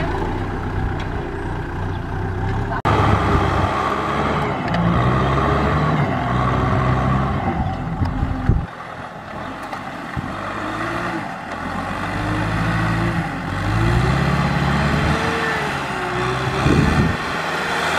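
Kubota M6040SU tractor's four-cylinder diesel engine running under load as it pulls a rotary tiller through wet soil, its pitch rising and falling with the load. The sound changes abruptly twice, about three and eight and a half seconds in.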